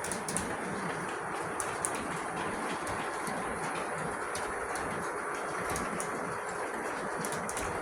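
O-scale model freight train pulled by MTH RS11 diesel locomotives, running steadily along the track. A continuous rumble of wheels and motors carries irregular sharp clicks as the wheels pass over rail joints.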